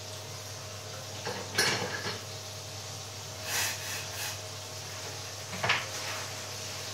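A steady low hum with a few separate clatters and knocks of hard objects, the loudest about a second and a half in and again near the end.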